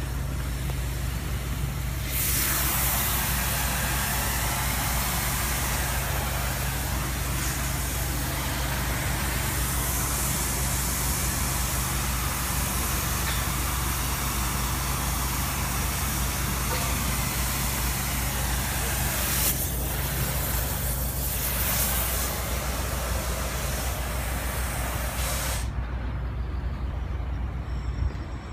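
Gas preheating torch hissing steadily as it heats the tram rail ends inside a thermite-weld mould; it comes on about two seconds in and is shut off sharply a few seconds before the end. A steady low hum runs underneath.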